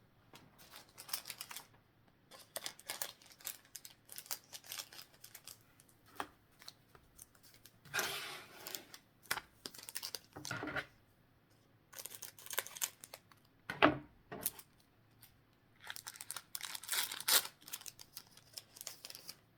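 Foil booster pack wrapper being torn open and crinkled, in irregular bursts of crackling and rustling, the sharpest crackle a little past the middle.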